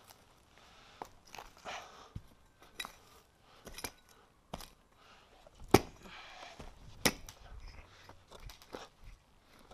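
Axe chopping into birch roots in the soil: irregular strikes with crunching and scraping of earth between them, the two sharpest blows about two-thirds of the way through.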